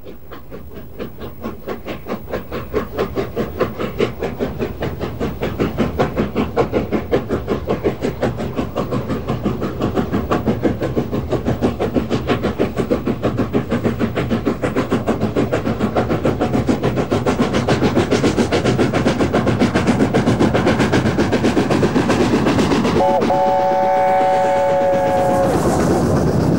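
LNER A4 Pacific 'Union of South Africa' under steam, its three-cylinder exhaust beating rapidly and evenly and growing steadily louder as it approaches. About 23 seconds in, its three-note chime whistle sounds for about two and a half seconds.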